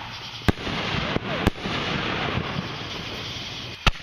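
Fireworks going off: three sharp bangs, about half a second in, about a second and a half in and near the end, over continuous crackling.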